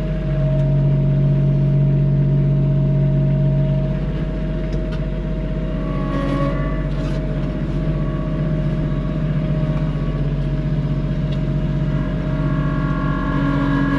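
Engine running steadily under load, its note stronger for the first few seconds and then easing, with a higher whine joining about six seconds in and again from about twelve seconds on.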